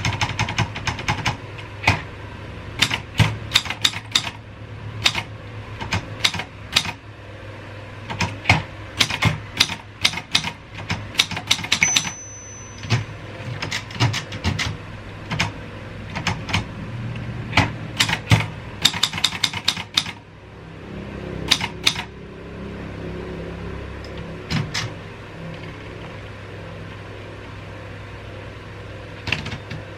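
Royal 202 typewriter being typed on: quick runs of key strikes with short pauses, and a brief high ring about twelve seconds in. The strikes thin out after about twenty seconds, when a steady low rumble comes in.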